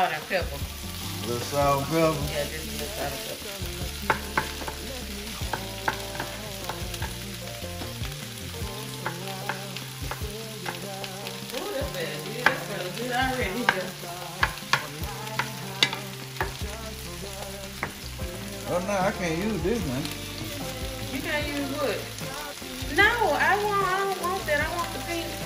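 Food sizzling in a frying pan while it is stirred, with a utensil clicking against the pan every so often.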